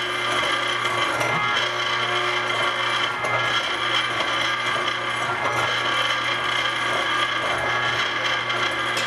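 Electric meat grinder motor driving a meat cuber (tenderizer) attachment, running with a steady hum and whine while pieces of deer backstrap are fed through its blades.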